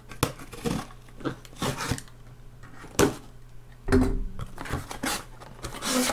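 Cardboard shipping box being cut open and handled: irregular scrapes, rustles and clicks of cardboard, with a sharp click about three seconds in and a knock about four seconds in.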